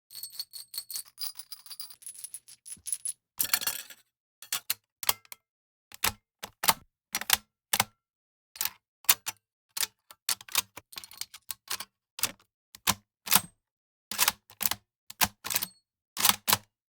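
Firearm actions being worked by hand: a series of sharp metallic clicks and clacks, the first few with a short high metallic ring, a longer sliding metal rasp at about three and a half seconds, then a steady run of clicks in close pairs and groups.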